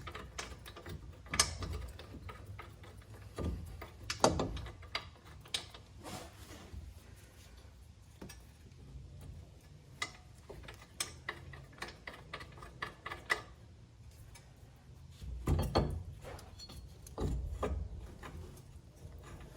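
Metal clicks and knocks from a car's brake caliper bracket being wiggled against the new front rotor while its bolts are lined up and started by hand, with a few heavier thuds near the end.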